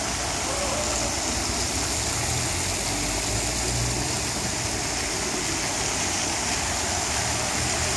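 Water-curtain fountain falling from a pergola into a pool, a steady splashing hiss.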